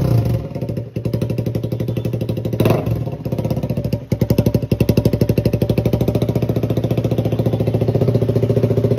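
KTM Duke 125's single-cylinder engine running loud through a bare bend pipe with no silencer fitted, giving a rapid popping exhaust note. The throttle is blipped briefly a few seconds in, and the note dips for a moment twice.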